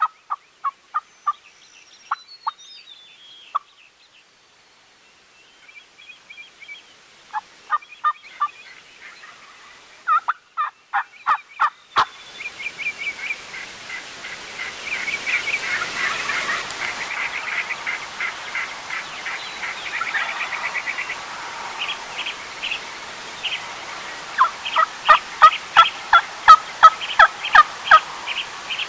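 Turkey calling in runs of short, repeated notes. The calling is sparse at first, then faster and denser over a steady hiss after about 12 seconds, with the loudest, most evenly paced run near the end.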